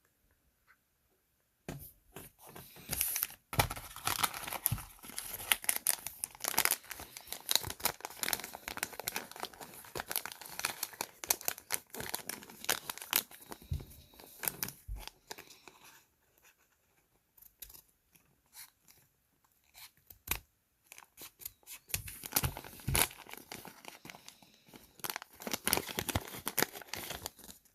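Thin plastic packaging of a miniature toy being torn open and crinkled by hand, in two stretches of dense crackling with a quieter lull in the middle.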